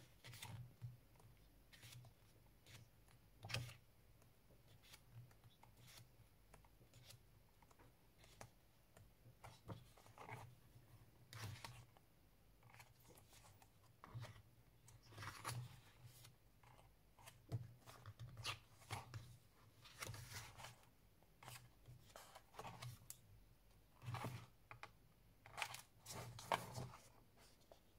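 Glossy photobook pages of a K-pop album being turned one after another: quiet, irregular paper rustles and flicks.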